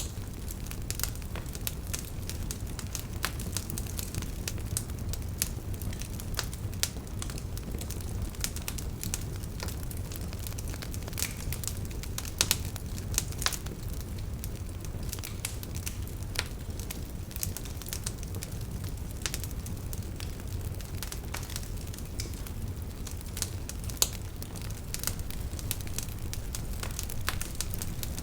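Fireplace fire crackling: irregular sharp pops and snaps over a steady low rumble of the flames, with a few louder pops about halfway through and once more near the end.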